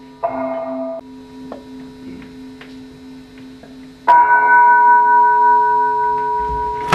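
Bell-like struck tones in the stage music over a steady low hum: a short ringing strike near the start that is cut off after under a second, then a louder strike about four seconds in whose several clear tones ring on steadily.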